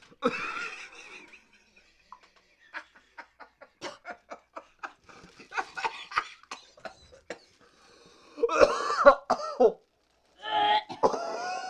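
A woman coughing and gagging on a mouthful of century egg, with short crackles from a plastic bag being handled in the middle, and two loud strained retching bursts near the end.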